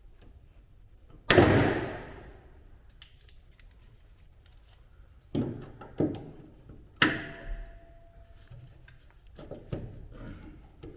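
Knocks and clatter of things being handled in a workshop: one loud knock with a ringing tail about a second in, then a few more knocks and small clicks later on, one leaving a brief ringing tone.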